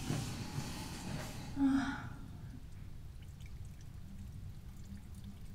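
A person urinating into a toilet bowl, a light trickle of water, with a short sigh of relief about one and a half seconds in.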